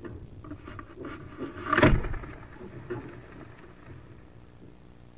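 Wood duck hen scrambling and flapping inside a wooden nest box, claws scratching and wings brushing the wood, with one loud thump about two seconds in as she leaves through the entrance hole.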